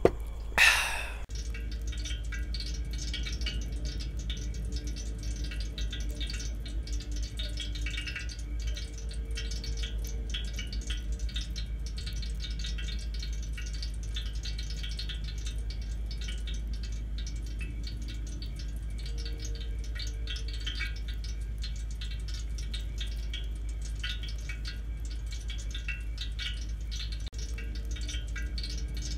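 Glowing embers of a wood fire crackling with many small, irregular pops, over a steady low rumble. A short, loud whoosh comes about half a second in.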